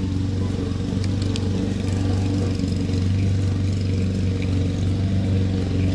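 Lawn mower engine running steadily in the background, a constant hum that does not change.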